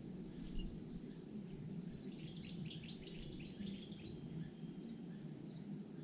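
Faint outdoor ambience: steady low background noise with a thin high hiss, and a quick run of short, high chirping notes about two seconds in that lasts roughly two seconds.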